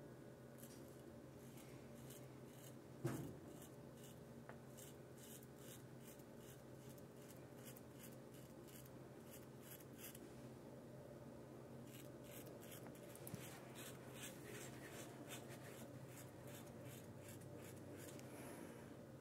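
Faint, quick rasps of a Rockwell R1 double-edge safety razor scraping through lathered stubble in short strokes. There are two runs of strokes with a pause of a couple of seconds between them, and one soft thump about three seconds in.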